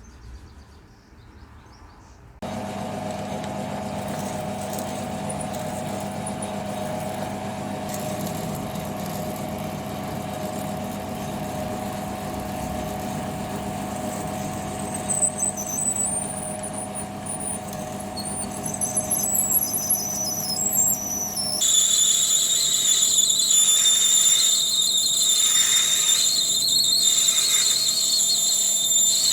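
A machine tool's motor starts about two seconds in and runs steadily. High squealing from a cutting tool on metal comes and goes, then becomes a loud, steady squeal about two-thirds of the way in, pulsing about once a second.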